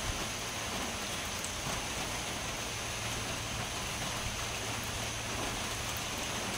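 Steady rain falling, an even hiss with a few faint scattered drip ticks.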